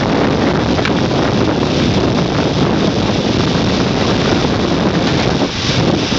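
Wind buffeting the microphone: a loud, steady rushing noise with no clear rhythm.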